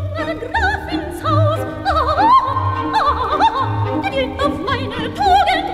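Operetta recording from an old LP: an orchestra playing with an operatic voice singing in vibrato over a steady pulse in the bass.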